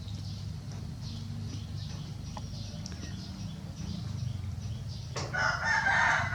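A steady low hum, and about five seconds in a loud animal call lasting about a second.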